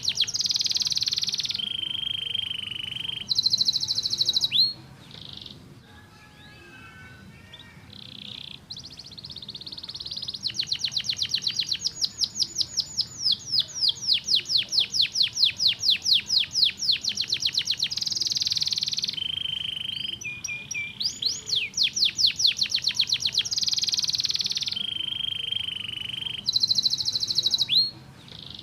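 Domestic canary singing, a long run of rapid trills of repeated notes that switch from one pitch to the next every second or two. There is a quieter stretch with softer notes about five to nine seconds in.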